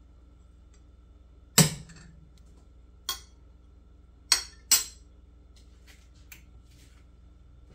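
A metal spoon clinking against a stainless steel saucepan and then being set down on a ceramic spoon rest: four sharp clinks, the loudest with a brief ring about one and a half seconds in, and two close together around four and a half seconds, over a low steady hum.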